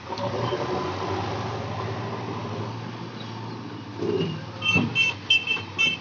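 Diesel engine of a JCB 3DX backhoe loader running steadily, then a reversing alarm beeping rapidly over the last second and a half.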